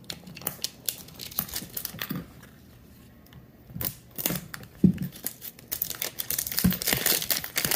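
Plastic shrink-wrap being torn and peeled off a metal Poké Ball tin, crinkling and crackling in irregular fits. There is a lull of about a second just before the middle, and the crinkling comes thicker over the last few seconds.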